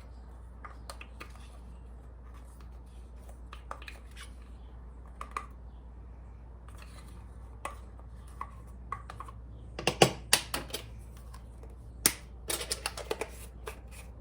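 Scattered light clicks, taps and clinks of kitchen utensils and containers as ingredients are measured and added to a bowl of marinade, with a denser, louder run of clatter from about ten seconds in.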